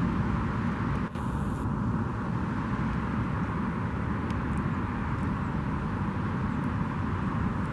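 Wind buffeting the microphone outdoors: a steady, fluctuating low rumble with a brief dip about a second in.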